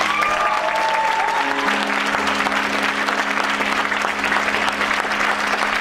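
Audience applauding as a song ends, with the band's held final notes still sounding underneath.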